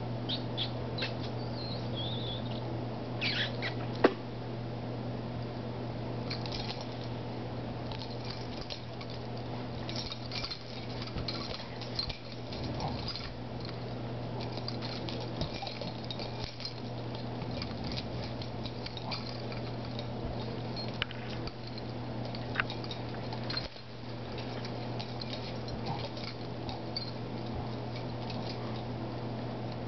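Two dogs play-fighting on a carpet: scattered soft mouthing and jaw clicks with a few brief high squeaks, and one sharp snap about four seconds in, over a steady low hum.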